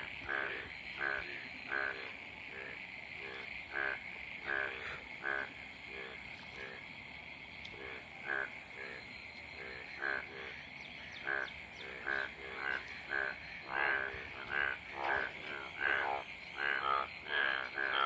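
Frogs croaking: a run of short croaks, each a quick rattle, several animals overlapping and coming thicker and louder in the last few seconds, over a steady high-pitched buzz.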